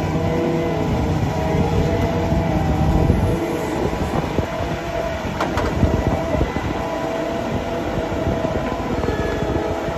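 Self-propelled Strautmann Verti-Mix feed mixer wagon running, its engine and front silage cutter working at a silage clamp face. A heavy low rumble eases after about three seconds, leaving a steady engine drone with one sharp click about halfway through.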